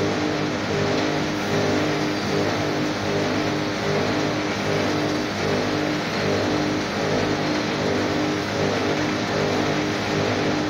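CRL800 copper wire shredding and granulating machine running steadily: a loud, even mechanical drone and hiss with a hum that pulses at a regular beat.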